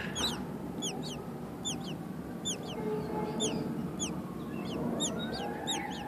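Nestling songbirds begging in the nest: a steady run of thin, high chirps that each sweep downward, often in quick pairs, about two a second. A faint steady tone rises in about five seconds in and holds.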